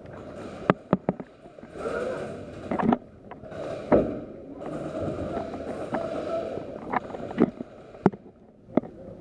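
Rustling and scraping of a player moving with gear, with about eight scattered sharp snaps of airsoft gunfire during an indoor game.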